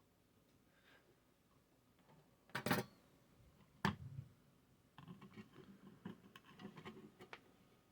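Clicks and light clatter of small tools and parts being handled during the wiring work: a cluster of knocks about two and a half seconds in, a sharp click about a second later, then a run of small quick ticks.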